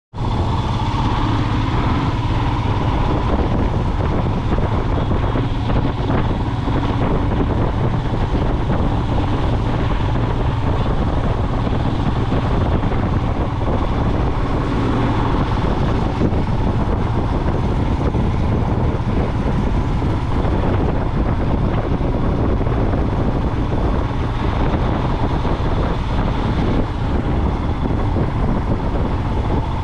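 Motorcycle engine running steadily under way in slow traffic, with wind noise on the microphone. The engine is a Royal Enfield Himalayan's single cylinder.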